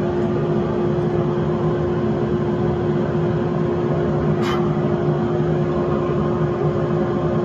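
Electric motor of shop machinery running steadily with a constant mains hum, and one short sharp click about four and a half seconds in.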